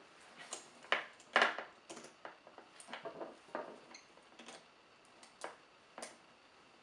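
Steel chain links and steel rings clinking and clicking against each other as they are handled, about ten irregular sharp clinks, some with a brief metallic ring.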